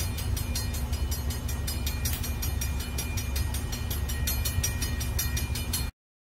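Diesel freight locomotives passing, a steady low engine rumble with a quick, even ticking over it; the sound cuts off abruptly near the end.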